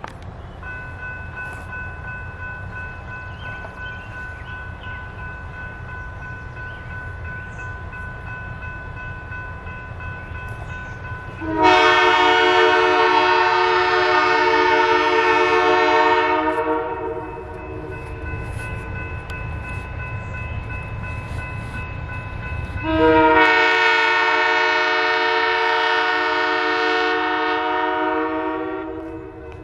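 Diesel switcher locomotive, a 750 hp Lima LS-750, running with a low, steady rumble. It sounds its air horn in two long blasts of a chord, the first about five seconds long starting about twelve seconds in, the second about six seconds long starting near twenty-three seconds.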